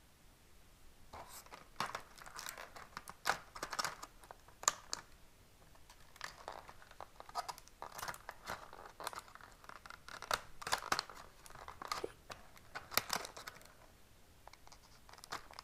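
Hobby knife slicing the tape on a clear plastic blister tray, the thin plastic crinkling and crackling in irregular clicks as it is cut and handled.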